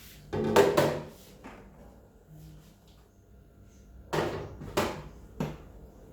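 Fridge drawers and containers being handled: a clatter of knocks about half a second in, then three sharper knocks between four and five and a half seconds.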